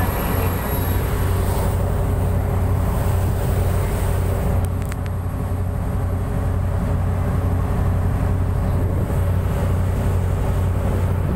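Motor boat under way: the engine runs with a steady low drone, mixed with water rushing and spraying along the hull. Two faint clicks about five seconds in.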